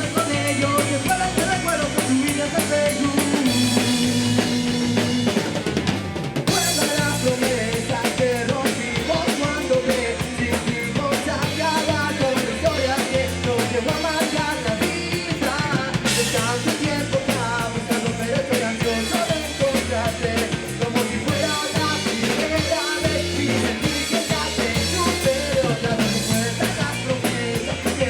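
Rock music with a full drum kit keeping a steady beat, bass drum and snare prominent, under guitar and other instruments.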